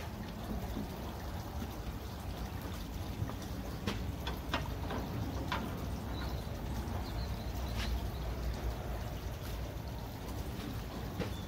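A few light taps and clicks as a curtain track is offered up and held against a van's rear door frame, over a steady hiss.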